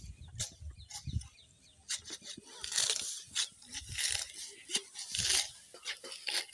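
Hand sickle cutting through clumps of grass: a series of short, crisp rustling cuts and tears, loudest in the middle.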